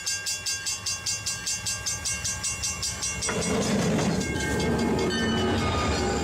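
Train running: a quick, even rhythm of about five beats a second with steady ringing tones over it. About three seconds in it changes to a louder, fuller rush and low rumble with shifting tones.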